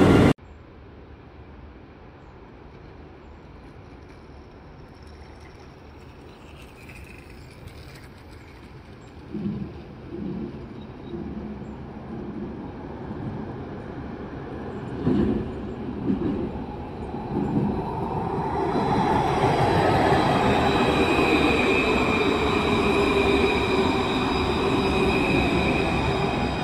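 Electric low-floor tram approaching and passing close by. Its running noise swells from about two-thirds of the way through, with a steady high whine over the rumble. A few dull knocks come before it arrives.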